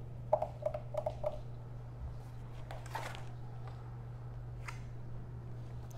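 Handling sounds as a motorcycle passenger seat is pushed down onto its mount to lock: a sharp click just after the start, a few short squeaks, then scattered rubbing and rustling, over a steady low hum.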